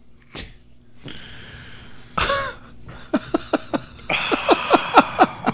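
People laughing in quick repeated bursts, starting about two seconds in and growing fuller near the end.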